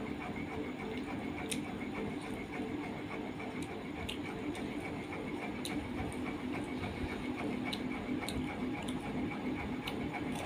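Scattered small clicks and chewing from someone eating by hand from a plate, over a steady mechanical hum with a faint regular ticking.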